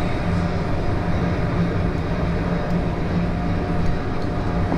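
Steady drone of a cruise ship's machinery with a low hum underneath, running without change.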